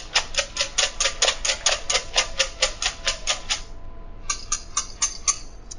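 Eggs being whisked in a stainless steel bowl: quick, even strokes of the utensil clicking against the metal, about six a second. There is a short pause just before the 4 s mark, then a few more strokes.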